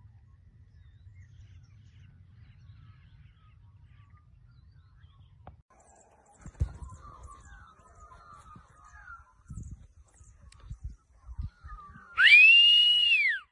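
A low rumble, then faint bird chirps and a few knocks. Near the end, a loud handler's whistle command to a working sheepdog: one pitched whistle that rises sharply, holds for about a second, then falls away.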